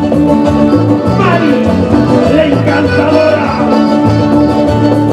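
Live band music: guitars, bass and drums playing a steady dance tune.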